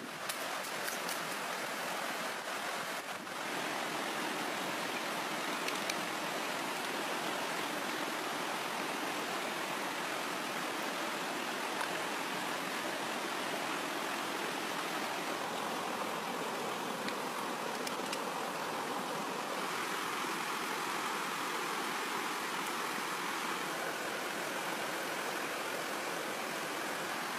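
Steady rush of a shallow creek running over rocks, with a few faint clicks.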